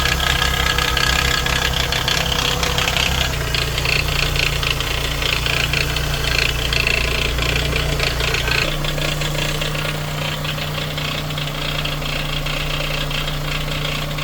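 Toyota RAV4's 2AZ-FE 2.4-litre four-cylinder engine idling with a fast metallic rattle over its drone, the engine-problem rattle the owner is showing. The low drone shifts twice, about three and nine seconds in.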